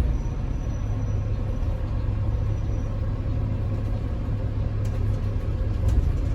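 Diesel engine of a 2008 bus running at a steady low rumble, with no rise or fall in pitch. A faint high whistle sounds for the first couple of seconds.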